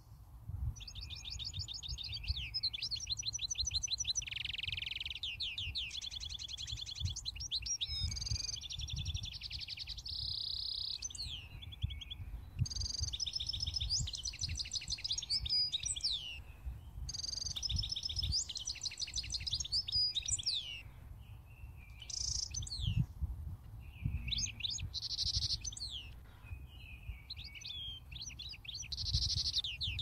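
Begging calls of a juvenile European goldfinch as its parent feeds it. The calls come in repeated bursts of rapid, buzzy trills a second or two long, separated by short pauses. A low rumble runs underneath.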